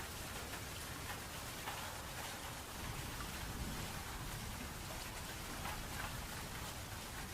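Steady rain, with individual drops audible as fine ticks, over a low, continuous rumble of distant thunder.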